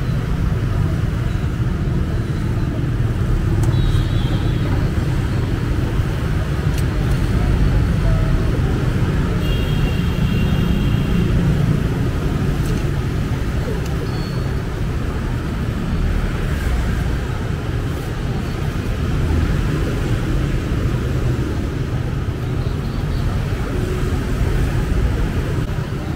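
Steady rumble of busy street traffic, mostly motorbikes passing close by, with a short high beep about ten seconds in.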